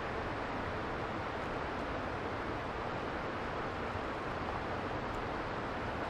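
Steady, even outdoor background hiss with no distinct sounds standing out.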